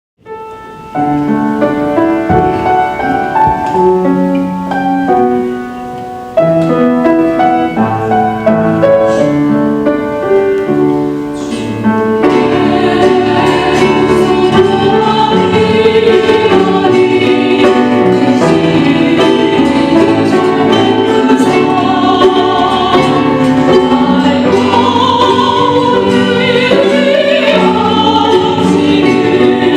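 A small vocal ensemble sings a church song in harmony, accompanied by ukulele and guitar. The instruments play alone at first, and the voices come in about twelve seconds in.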